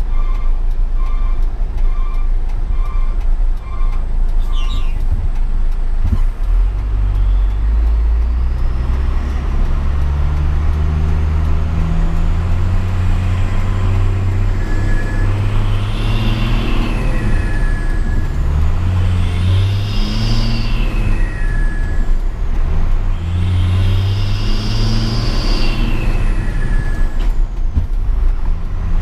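Hino 500 truck's diesel engine through its loud Cung-style exhaust, revving up and dropping back several times as it pulls through the gears, with a high whine that rises and falls with the engine. A run of six short beeps in the first few seconds.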